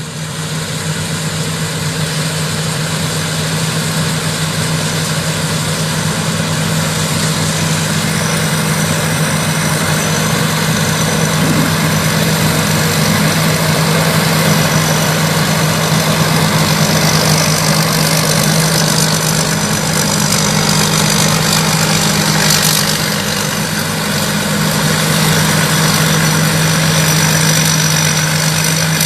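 Rice combine harvester running at a steady drone: engine and threshing machinery working together, with a strong steady hum under a wide mechanical rush that swells slightly now and then.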